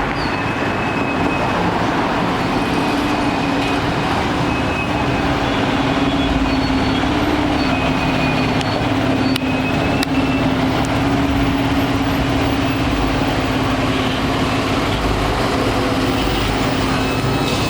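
Heavy vehicle's engine running steadily with road noise, a constant low drone and no siren.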